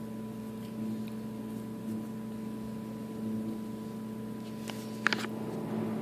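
Steady electrical hum of a break room's vending machines and drink coolers, several fixed tones held level throughout. A few light clicks about five seconds in.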